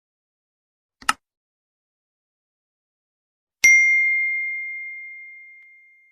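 A short click about a second in, then a single bell-like ding struck once near the middle, ringing on one high tone and fading away over about two and a half seconds.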